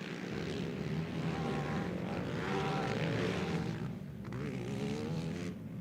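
Racing quad bikes' engines revving on track, their pitch repeatedly rising and falling with the throttle as they pass.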